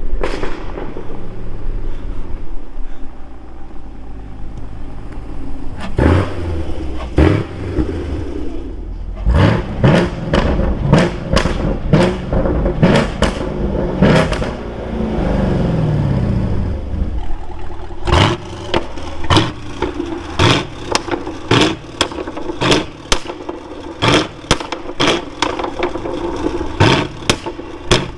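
2019 Camaro 1LE's V8 through a Corsa cat-back exhaust, revved again and again, with many sharp crackles and pops as the revs drop. About halfway through the revs fall away steadily, and the pops come thick and fast in the last third. The crackling comes from the engine running rich.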